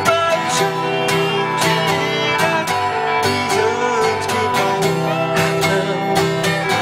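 Instrumental guitar duo: a steel-string acoustic guitar strummed in a steady rhythm under an electric guitar played through a small Vox amp, its lead line bending some notes in pitch.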